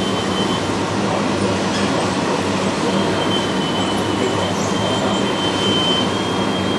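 Radio-controlled model construction truck running: a steady mechanical noise of small motors and gearing, with a thin high whine for a few seconds in the middle.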